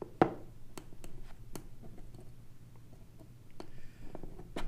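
Small sharp clicks and taps of a hand tool and tiny screws against a pistol slide as its mounting screws are worked, about five clicks, the loudest about a quarter second in.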